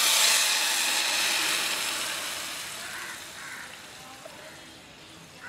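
Watery ground masala paste hitting hot oil in a pan: a loud sizzling hiss that gradually dies down over a few seconds as the paste settles and simmers.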